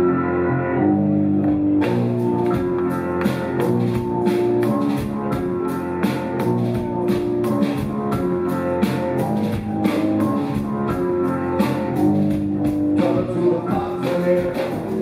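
A rock band playing live: sustained bass and guitar notes, with the drum kit coming in about two seconds in and keeping a steady beat with cymbals.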